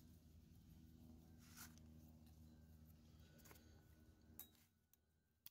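Near silence, with a few faint light clicks of the metal brake pad hardware clips being handled on a rear brake caliper bracket.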